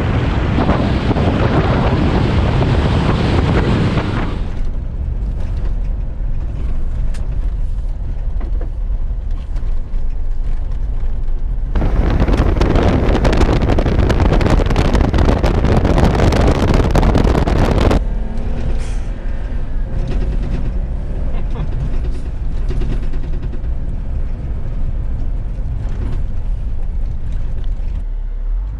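Jeep Wrangler Rubicon driving off-road: a steady engine and drivetrain rumble under wind and tyre noise. A louder rushing noise fills the first few seconds and again a stretch in the middle, and the sound changes abruptly several times.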